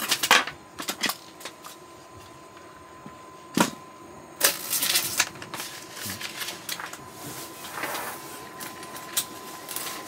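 A hinged wooden cutting board clicking as it is unfolded, then set down on a wooden table with one sharp knock a few seconds in. After that, a knife cutting a carrot on the board, with uneven taps and scrapes, over a faint steady tone.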